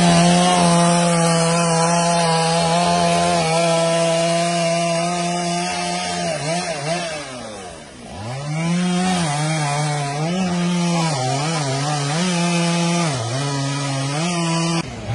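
Chainsaw engine running at high revs, held steady for about six seconds. It then drops off and revs back up, wavering up and down under load as it cuts wood.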